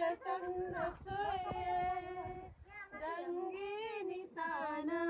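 A high-pitched voice singing a melody unaccompanied, in phrases of long held, wavering notes with short breaths between them.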